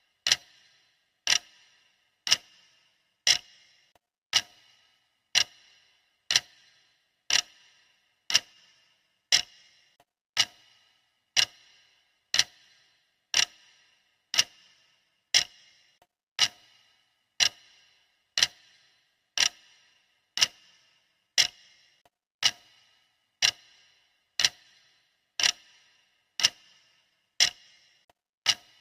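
Clock ticking steadily, one sharp tick about every second, each with a short ringing tail.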